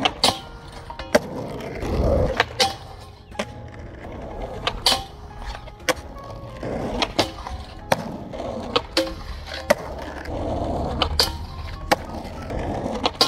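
Skateboard rolling on rough asphalt, with repeated sharp clacks of tail pops and landings as the Independent Stage 4 trucks grind along a metal flat bar. Background music plays under it.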